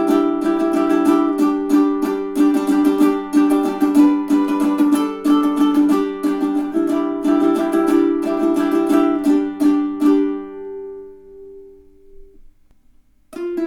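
Magic Fluke M20 tenor ukulele strung in re-entrant baritone tuning (dGBE with a high D, Living Water strings), played in a quick run of notes and chords. About ten seconds in a last chord is left to ring and die away, and the playing starts again just before the end.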